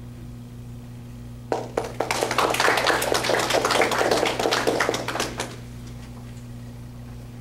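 Audience applauding for about four seconds, starting about a second and a half in and then stopping, over a steady low hum.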